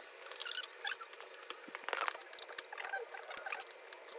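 Scattered small clicks, taps and rustles from hands handling flat-pack furniture panels and small fittings, irregular and light.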